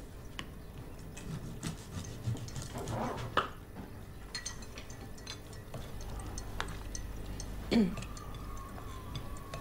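Breakfast-table sounds: cutlery and crockery clinking and scraping, with scattered small knocks, a sharper click about three and a half seconds in and a louder knock near the end. A low hum comes in about halfway through.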